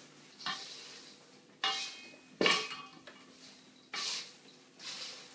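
Salad tongs tossing buttered, salted popcorn in a large metal bowl: about five separate scraping clinks against the bowl, some with a brief metallic ring.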